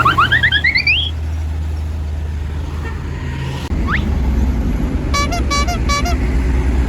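A low, steady vehicle engine rumble. It opens with a quick run of rising whistle-like tones, and about five seconds in come three short blasts of a multi-tone 'telolet' bus horn.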